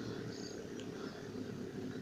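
Small boat's outboard motor running at low speed a short way off, a steady, rough low drone.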